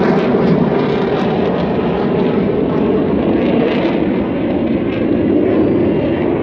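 Steady jet noise from RAF BAE Hawk T2 trainer jets flying their display, a loud, even rush of engine sound.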